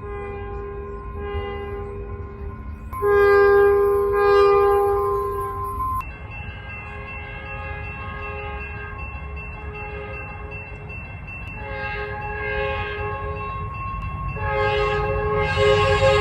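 Locomotive air horns sounding a multi-note chord in repeated blasts over a low rumble. The loudest blast, about three seconds in, stops abruptly after some three seconds; a quieter held horn follows, then short blasts and another loud horn near the end.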